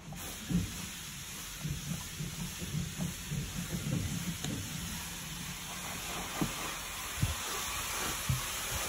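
Black & Decker SteamWorks BD1200 steam cleaner jetting steam with a steady hiss that starts suddenly, with a few light knocks from handling.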